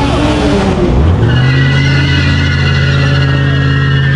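Car engine revs up about a second in and is held at steady high revs for about four seconds, with a high squeal over it, typical of a burnout.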